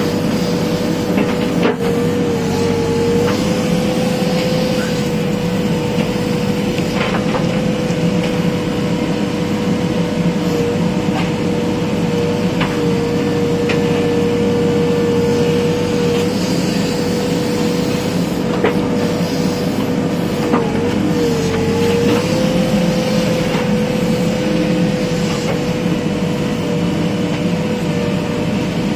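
JCB backhoe loader's diesel engine running steadily while digging, with a strong steady whine whose pitch sags briefly twice, once near the start and again about two-thirds through, as the arm takes load. Scattered short knocks from the bucket and soil.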